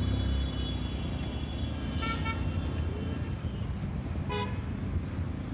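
Vehicle horns tooting in traffic over the steady road noise of a moving two-wheeler: two short toots about two seconds in and another just past four seconds.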